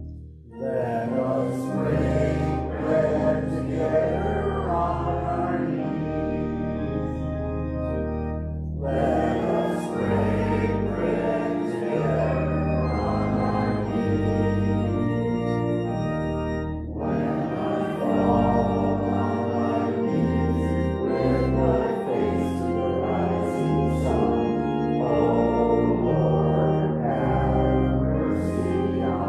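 Organ playing a hymn in sustained chords, phrase by phrase, with short breaks between phrases about nine seconds in and again near seventeen seconds, and voices singing along.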